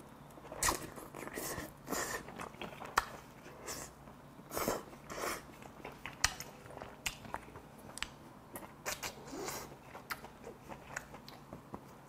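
A man chewing and eating kimchi braised with pork back ribs, close on a lapel microphone: wet mouth smacks and chewing, with scattered sharp clicks.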